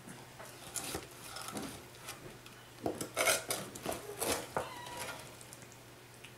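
Metal spatula and utensil scraping and clinking against the sides of a metal loaf pan as a cooked meatloaf is loosened from it: a scatter of short scrapes and knocks, busiest about three to four and a half seconds in.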